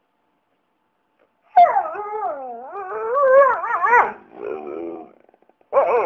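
A dog howling with a wavering, warbling pitch, the 'talking' kind of howl. One long warbling howl starts about a second and a half in. A shorter, lower call follows, and another howl begins near the end.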